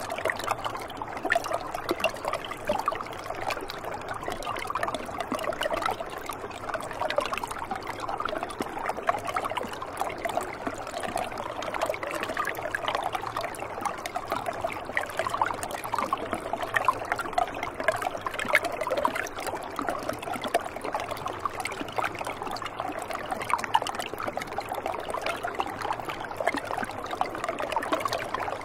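Shallow, partly iced-over stream trickling over rocks: a steady babble of many small splashes.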